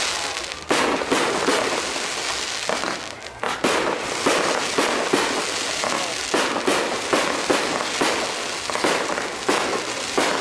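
Fireworks display: aerial shells bursting in a rapid, even series of bangs, about two a second, over continuous crackling. There is a brief lull about three seconds in.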